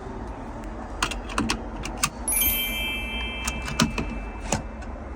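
Metal clicks and clinks from a seat belt's latch plate and buckle as the new belt is tried out, with a brief metallic ring about halfway through.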